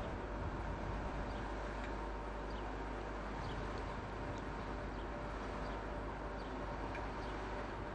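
Steady low rumble and hum of an AC electric locomotive drawing slowly into the platform, with a few faint high chirps scattered through it.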